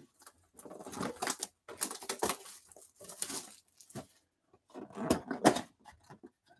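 Clear plastic shrink wrap being torn and crinkled off a cardboard trading-card box, in several short irregular bursts with brief pauses between them.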